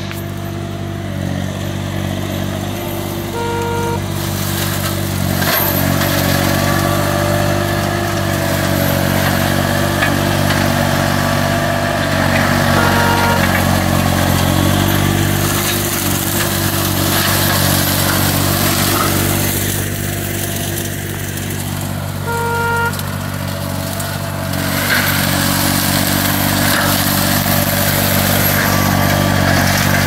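Green Climber LV600 remote-controlled slope mower running steadily under load, its Kohler engine and forestry mulching head shredding dense brush. A short beep sounds three times, about nine seconds apart.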